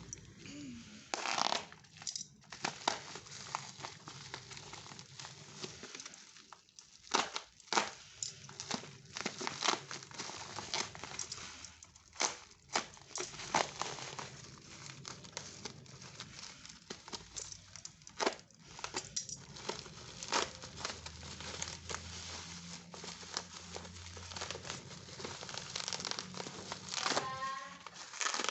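Packaging being crinkled, crumpled and torn open by hand in irregular rustles and crackles while a transformer is unwrapped.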